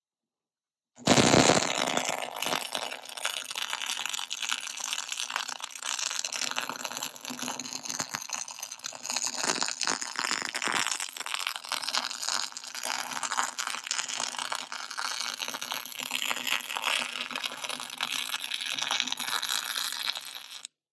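MIG welding arc from a Miller-Matic 252 laying a bead: a steady crackling sizzle that starts suddenly about a second in and cuts off abruptly near the end, one continuous weld of about twenty seconds.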